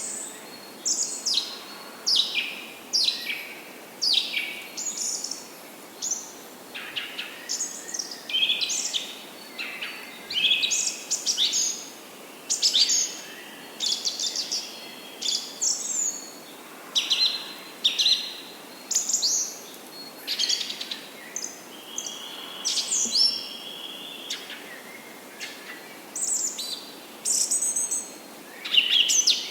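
Several songbirds chirping and singing, short high-pitched whistled phrases coming one or two a second, over a faint background hiss.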